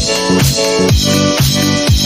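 Electronic dance music with a steady beat and a deep kick drum.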